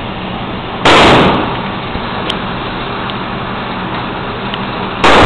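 Two gunshots in an indoor shooting range, about four seconds apart, each loud and sudden with a short echo dying away over about half a second, over a steady background noise.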